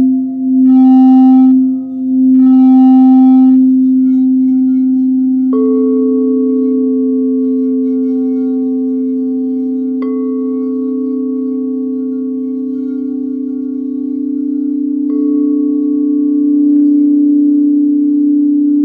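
Singing bowls played for sound healing. A low bowl hums steadily throughout, with pulsing, overtone-rich swells in the first few seconds. A higher bowl is struck three times, about every five seconds, and each strike rings on over the hum.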